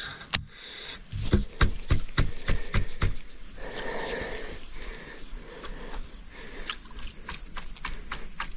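Crickets trilling steadily on one high thin note from about halfway through. Before that comes a quick run of sharp clicks and knocks lasting two or three seconds.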